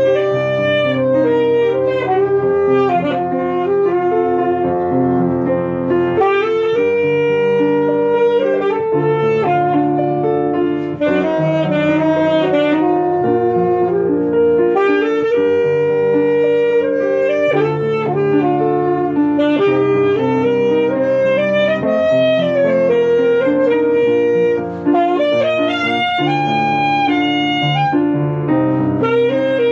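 Alto saxophone playing a melody over grand piano accompaniment, the notes moving step by step without a break.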